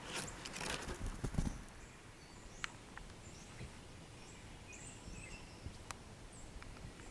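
A few rough crunching scrapes in the first second and a half, then faint, short, high bird chirps scattered through the rest, with a few light clicks.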